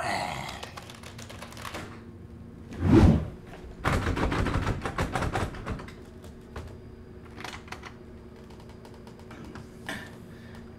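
A heavy thump about three seconds in, followed by about two seconds of rapid clicking like fast typing on a computer keyboard, then a few faint scattered clicks.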